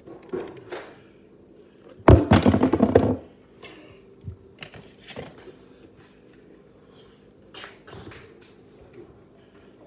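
Dishes and containers handled on a kitchen counter close to the microphone: small knocks and taps, with one loud rattling clatter about two seconds in that lasts about a second.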